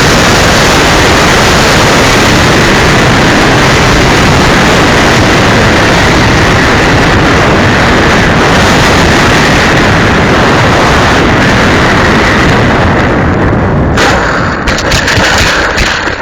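Heavy wind buffeting the microphone: a loud, distorted rush of noise that turns choppy and uneven about two seconds before the end.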